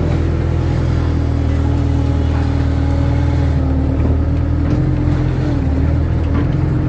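Kato crawler excavator's diesel engine running steadily at working revs, its pitch dipping briefly about five and a half seconds in.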